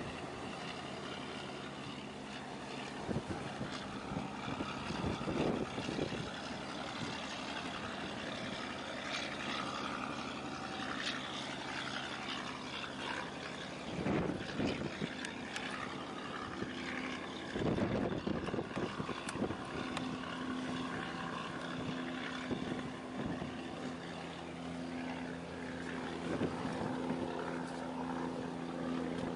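Steady low drone of marine diesel engines from the departing container ship and harbour tug, growing louder about two-thirds of the way through. Gusts of wind buffet the microphone and choppy harbour water splashes.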